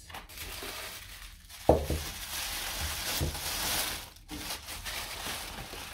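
Tissue paper rustling and crinkling as it is handled and pulled out of a cardboard box, with a sharp thump a little under two seconds in and a softer knock about a second later.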